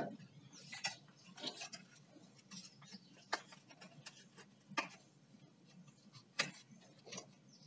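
Faint, scattered clicks and light taps of a pressure-cooker lid and its new rubber gasket being handled as the gasket is fitted, with a few sharper ticks spaced a second or more apart.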